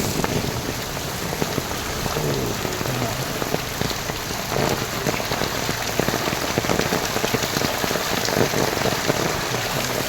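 Heavy rain pouring steadily: a dense, even hiss with the sharp patter of individual drops striking surfaces.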